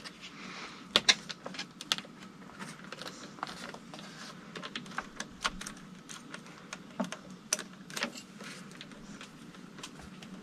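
Irregular small clicks and taps of a telephone wire and its plastic connector being handled and pushed into place along a door frame, with a low steady hum underneath.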